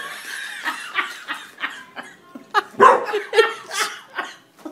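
Dog barking repeatedly in short, separate barks, loudest from about two and a half to four seconds in.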